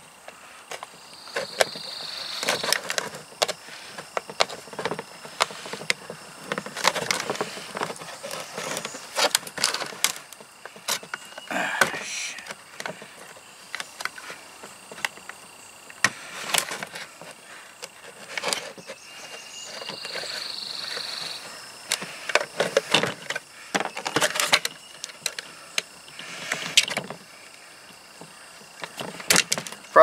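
Knife blade cutting and scraping into the plastic wall of a coffee canister, a run of irregular scratches and clicks as a round hole is dug out by hand.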